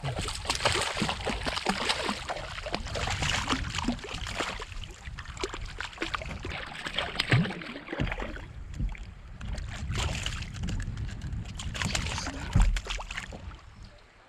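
Water sloshing and splashing against a fishing kayak's hull, with scattered knocks and clicks over a low rumble. It grows quieter in the last few seconds.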